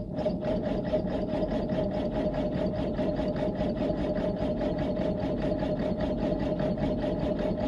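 Starter motor cranking a 1951 Ford Prefect's side-valve four-cylinder engine over, with an even, rapid beat of compressions under a steady whine. It cuts off abruptly near the end. The engine does not fire on full choke, a no-start that the owner then sets about tracing to fuel or spark.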